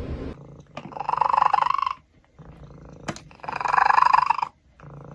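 A domestic cat making an odd, rough, pulsing call twice, each about a second long, with quieter breathy sounds between the calls.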